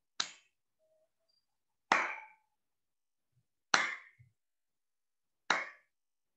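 Four sharp strikes, about two seconds apart, each ringing out briefly.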